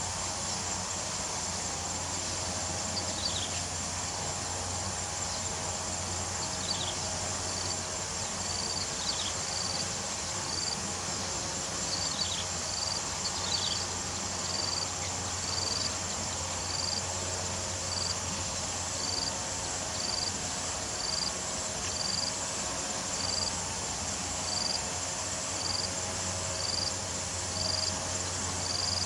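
Steady high-pitched insect chorus of crickets or similar insects, with a short chirp repeating about once a second through the second half and a few quick falling whistles in the first half.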